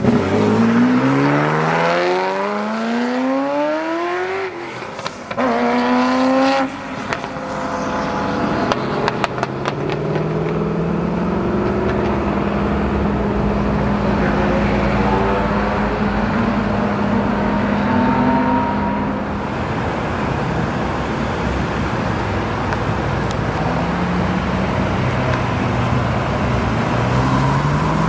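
Ferrari F40's twin-turbo V8 accelerating hard away from a standstill. Its note climbs steeply through one gear, dips at the upshift about five seconds in, then climbs again and fades as the car pulls away. Afterwards other cars' engines accelerate past in turn, with a fresh rise in engine note near the end.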